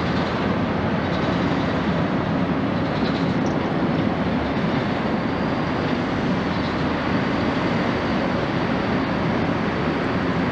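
Twin General Electric CF6 turbofans of a Boeing 767-300ER at takeoff power as it climbs out after departure, a steady low rumble.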